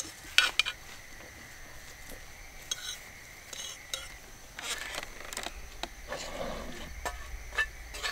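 Serving utensils scraping and clinking against a cooking pot and a frying pan as rice and chicken-and-broccoli curry are dished onto plates: scattered clinks and short scrapes.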